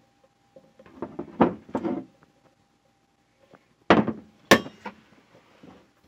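Enamelware tea kettle being handled: its folding metal handle clatters on its pivot, then knocks sharply twice, about half a second apart, against the enamelled steel body about four seconds in.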